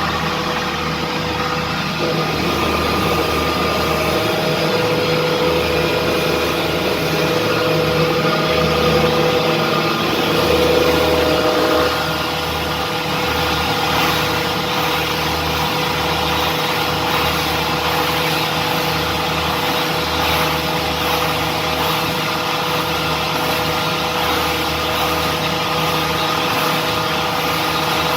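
Industrial rice husk grinding machine running steadily, a loud mechanical hum and whine over a rushing noise, with a slight shift in its tone about twelve seconds in.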